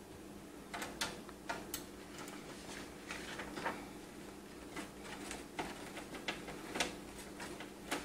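Light metal clicks and short scrapes, irregular, as a screw is fitted and turned by hand through a graphics card's mounting bracket into the PC case's expansion-slot rail, over a steady low hum.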